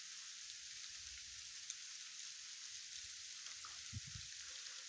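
Frozen rain falling, a faint steady hiss of fine ice pellets pattering on the frozen ground, with a few faint ticks.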